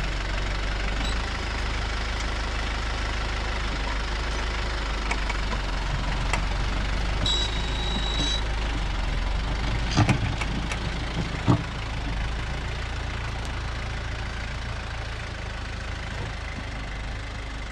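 Branson compact tractor's diesel engine running steadily while its front loader backfills a trench, with two sharp clunks about ten and eleven and a half seconds in.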